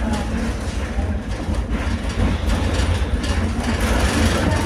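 Running noise heard inside the passenger saloon of a Vario LF.E low-floor tram in motion: a steady low rumble as it travels along the track.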